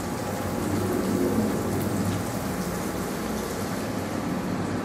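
Water poured into a pan of hot oil with frying tomatoes, chillies and spices, sizzling steadily and densely, with a steady low hum underneath.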